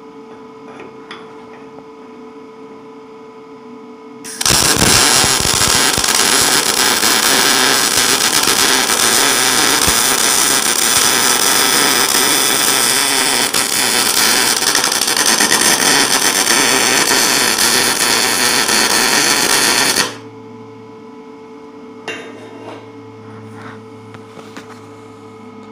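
MIG welding arc from a Lincoln 210 MP running .035 wire under C25 gas, set for 1/4 inch steel: one continuous weld about fifteen seconds long with a loud, steady crackle, starting about four seconds in and cutting off abruptly. Before and after the weld there is a low steady hum.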